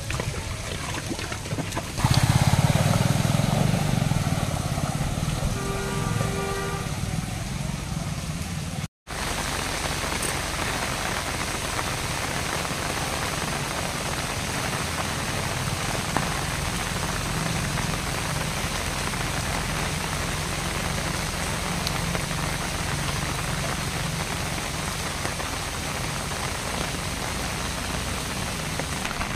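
Steady rain falling onto a flooded street, an even hiss. In the first several seconds a louder low rumble runs under it, with two short tones, and the sound cuts out abruptly for a moment about nine seconds in.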